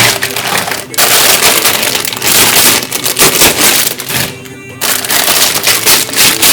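Plastic packaging of a model kit crinkling and crackling as it is handled, in two long stretches with a short pause in the middle.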